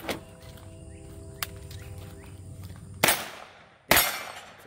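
Two single gunshots from a CZ Scorpion EVO 3 carbine, about a second apart, in the last third. Before them, a faint click and a faint steady ringing tone as the gun is picked up off a plastic barrel.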